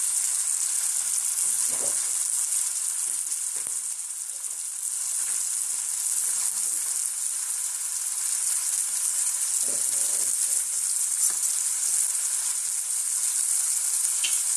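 Chicken and diced carrots frying in a wok: a steady sizzle, with a few faint knocks.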